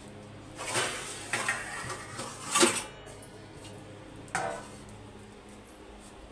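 Stainless steel kitchen utensils knocking and clinking together in a few separate clatters. The loudest comes about two and a half seconds in, and a last one about four seconds in rings briefly like a struck steel plate.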